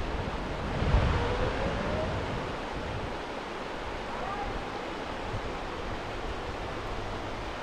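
Steady rushing of a flowing river, with a gust of wind buffeting the microphone about a second in.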